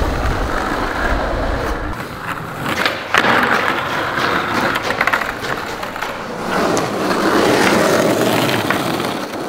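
Skateboard wheels rolling over rough asphalt, a steady grinding rumble, with a sharp clack of the board about three seconds in and a few lighter clicks around five seconds.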